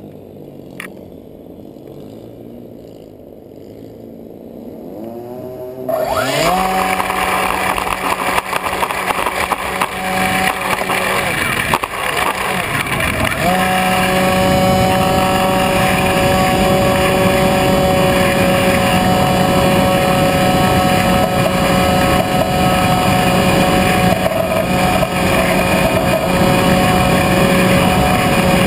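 Motor and propeller of a model Predator drone, heard from its onboard camera. It is quiet at first, then throttles up about six seconds in with a rising pitch for takeoff, settling into a steady high drone. It eases off briefly around twelve seconds, then returns to full power.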